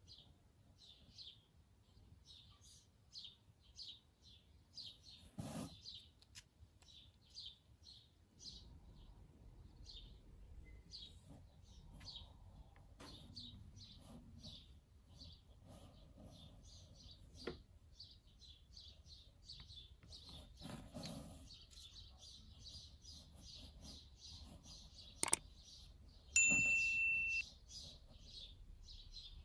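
A bird chirping over and over, about two short high chirps a second. Near the end comes a sharp click, then a loud steady tone lasting about a second.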